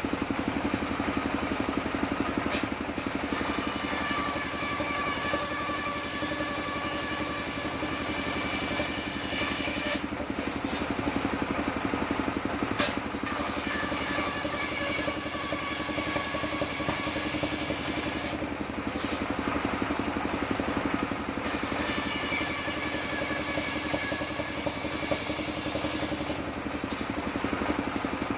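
Engine-driven circular table saw running steadily while ripping waru-wood planks lengthwise. The blade sets up a ringing whine in three cuts of several seconds each, separated by short pauses.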